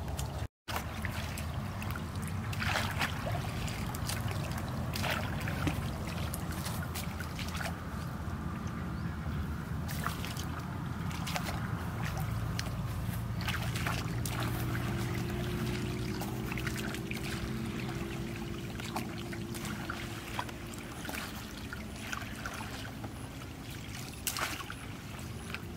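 Shallow muddy water splashing and trickling in repeated short bursts as a woven basket scoop is dragged and lifted through it, over a steady low rumble.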